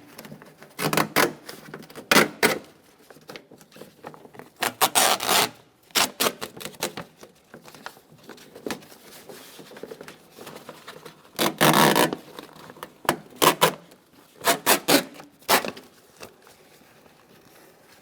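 Plastic vapor barrier being peeled off the door's adhesive sealant: irregular ripping and rubbing bursts, the longest about five seconds in and again about twelve seconds in.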